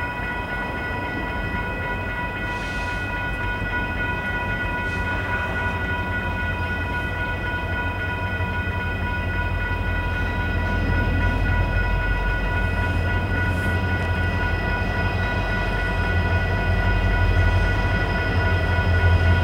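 Union Pacific SD70M diesel-electric locomotive leading a freight train, its low engine rumble growing steadily louder as it approaches. A steady high-pitched tone with several overtones sits over the rumble.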